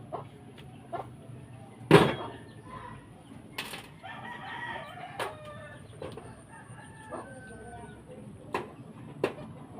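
Chickens clucking and a rooster crowing in the background. A single sharp knock about two seconds in is the loudest sound, with a few lighter taps and clicks scattered after it.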